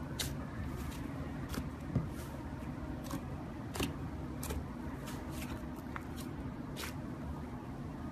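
Slime mixture being worked by hand, giving irregular sharp clicks and small pops about once or twice a second over a steady low hum.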